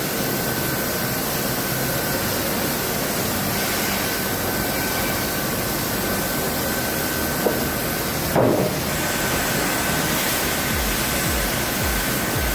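Electric sawmill machinery running with a steady, even noise and a thin high whine, with one short louder knock about eight seconds in.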